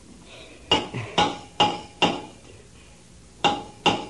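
A hammer clanging on a submarine's metal hull, tapping out an answer to a rescue diver's signals. Four evenly spaced strikes, a pause, then two more, each ringing briefly.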